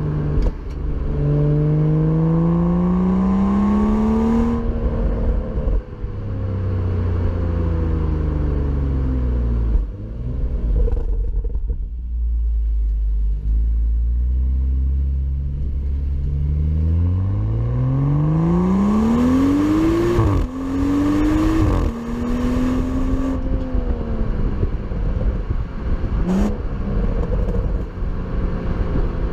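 BMW M235i's turbocharged 3.0-litre straight-six pulling through the gears, its exhaust note climbing in pitch, dropping at each shift and settling into a low drone while cruising. The hardest run comes about two-thirds of the way in, with a quick shift, and a short rev blip follows near the end.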